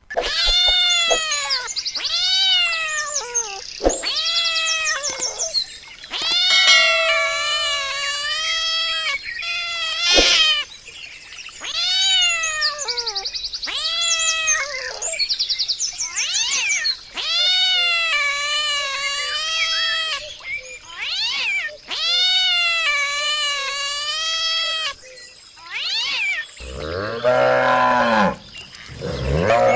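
A long series of cat meows, each a rising-then-falling cry about a second long, one after another. Near the end a cow starts mooing, much lower in pitch.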